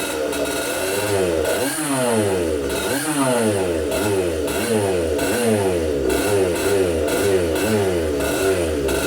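Komet K30 two-stroke rotary-valve kart engine, stroked to about 138cc, running and being revved up and down over and over, its pitch rising and falling in repeated blips, during the break-in of a new piston.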